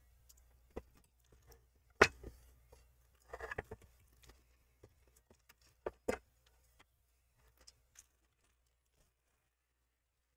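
Handling noise from a radiator with two plastic-framed fans being turned over on a tabletop: scattered clicks and knocks, the loudest about two seconds in and two more near six seconds, with a short rustle in between.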